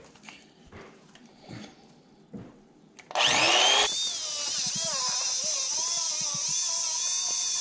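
A few faint taps. About three seconds in, a small electric motor starts up with a whine that rises in pitch, then runs on steadily with a wavering hum.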